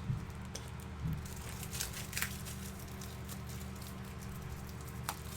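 Trading cards and plastic card holders being handled: light rustling and scattered small clicks, over a steady low hum.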